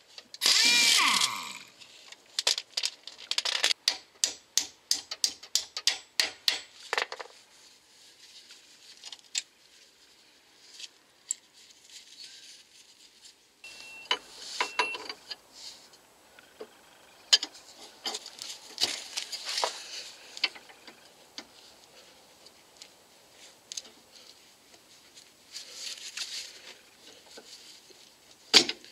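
Socket ratchet working the lower ball-joint nut off a Peugeot 206's front lower control arm, its pawl clicking in short rapid strokes for the first several seconds. This is followed by scattered metal knocks and scrapes as a pry bar levers the ball joint out of the hub carrier.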